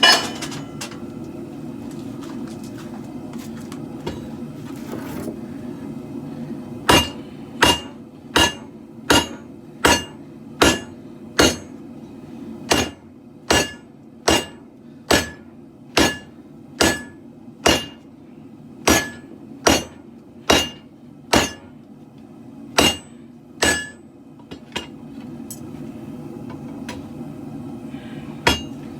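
Hand hammer striking steel on an anvil while forging a katana blade: about twenty steady blows, roughly one every 0.8 s, each with a short metallic ring. The run starts about a quarter of the way in and pauses shortly before the end, then resumes. A propane forge's burners hiss steadily underneath.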